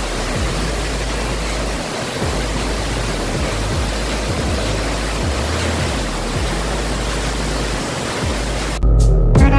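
Steady rushing roar of Tortum Waterfall's falling water, with a deep bass line of music underneath. Near the end the water sound cuts off abruptly and louder music with clear notes takes over.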